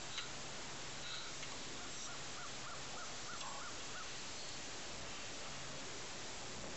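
Faint steady background hiss with a distant bird calling in a quick run of short repeated notes, about four a second, between about two and four seconds in.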